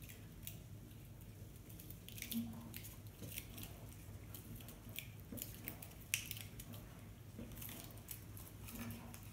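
Faint rustling and crackling of spruce sprigs and pine cones being handled, with scattered small clicks and snaps as wired pine cones are fixed into a clay-based Christmas arrangement. A faint low hum lies underneath.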